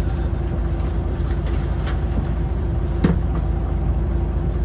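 Inside a moving city bus: steady low road and drivetrain rumble with a constant hum, and one sharp knock or rattle about three seconds in.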